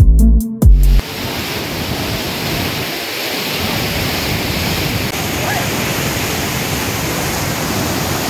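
Background music with a heavy bass beat cuts off about a second in, giving way to the steady rush of the Parvati River's fast white-water rapids.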